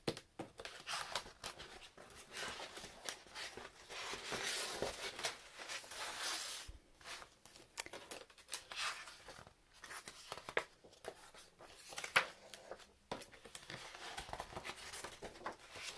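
Loose sheets of paper rustling and sliding as hands lift, turn and lay them down, in irregular crinkly strokes with short pauses between them.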